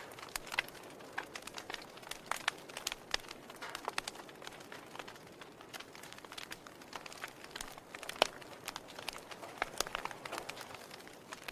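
Wood fire in a fireplace crackling: irregular snaps and pops over a soft hiss, with one sharp pop standing out about eight seconds in.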